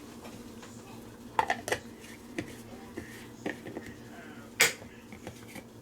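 Ninja Sip Perfect travel mug's lid being fitted onto the mug: a series of light clicks and knocks, the loudest near the end.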